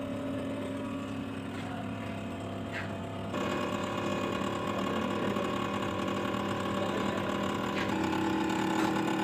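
Electric hydraulic pump of a concrete compression testing machine running with a steady hum while it loads a cracking concrete test cube. The hum gets louder about three seconds in and changes pitch again near the end.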